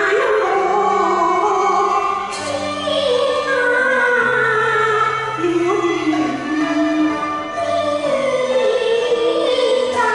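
A woman sings a Cantonese opera-style song, her melody sliding and bending between notes, over instrumental accompaniment with steady held bass notes.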